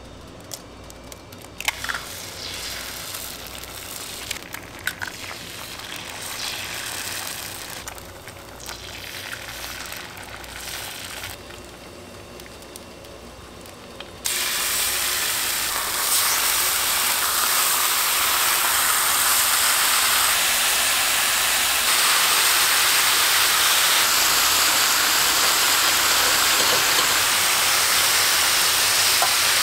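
Eggs cracked onto a hot flat-top griddle and frying with a light crackle, with a few sharp clicks early on. About halfway through, raw bacon strips are laid on the griddle and a loud, steady sizzle suddenly takes over.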